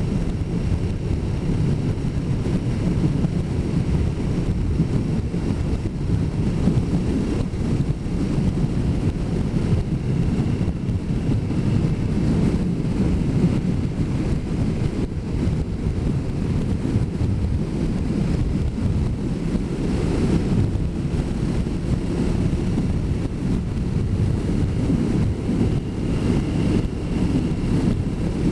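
Steady wind rush on the microphone of a motorcycle rider at speed, with the bike's engine droning underneath.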